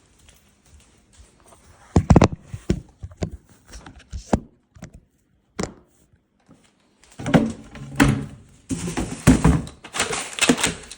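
Hard plastic clicks and knocks from a Dyson V10 cordless stick vacuum's dust bin and cyclone being opened and handled. A few separate knocks come in the first half, then a longer stretch of close clattering and rubbing.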